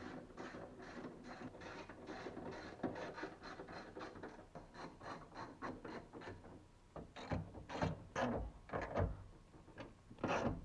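Ratchet wrench clicking quickly and steadily as screws are tightened inside a car door, about four clicks a second, followed by a few louder knocks near the end.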